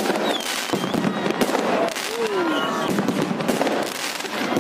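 Aerial fireworks bursting overhead in rapid succession: a dense, unbroken run of bangs and crackles.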